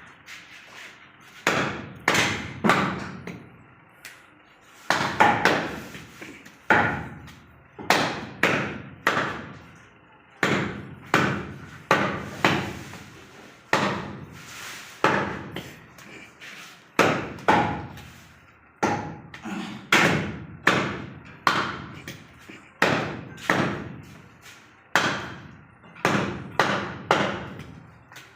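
A heavy butcher's cleaver chopping through goat legs, meat and bone, on a chopping block. The strikes come roughly once a second, often in quick pairs, each a sharp thud with a short ring.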